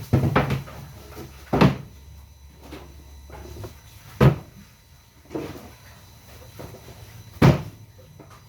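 Wooden panels knocking sharply about four times, a couple of seconds apart, as cut speaker-box boards are handled. Under them the homemade circular saw's motor hums low and stops about halfway through.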